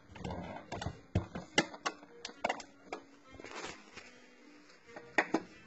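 Scattered sharp plastic clicks and knocks from a Ninja blender's jar and lid being handled and fitted together; the motor is not running.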